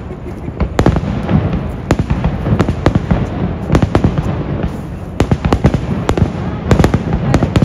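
Fireworks going off: many sharp bangs and crackles in quick, irregular succession.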